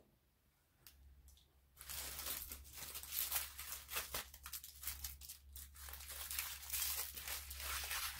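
Small clear plastic bags of diamond painting drills crinkling as a hand picks them up and shuffles them together, a dense rustle starting about two seconds in.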